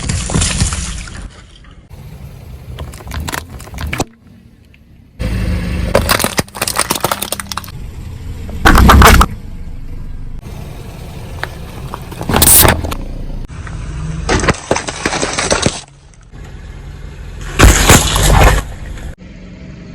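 Objects cracking and crunching as they are crushed under a car's wheels, in a run of short clips cut one after another. The loudest bursts come about nine seconds in, again a few seconds later, and once more near the end.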